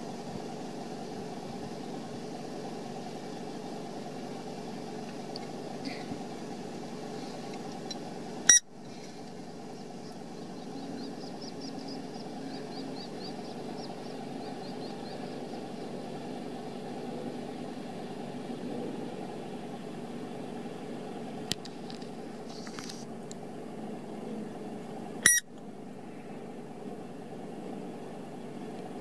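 Steady low mechanical hum with two sharp clicks, about eight seconds in and again near twenty-five seconds, and a faint high twittering a few seconds after the first click.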